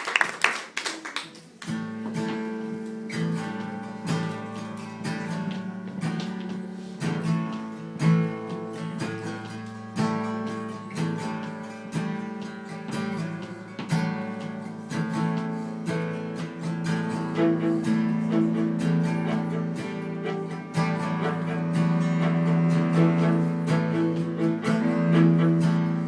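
Applause dying away in the first second or two, then an acoustic guitar playing the instrumental introduction to a song, with no singing yet.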